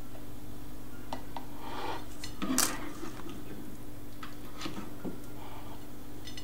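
Serving spoon clicking and scraping against a plate as shrimp in curry sauce are spooned around a mound of rice: a few light clicks, the loudest about two and a half seconds in, over a steady low hum.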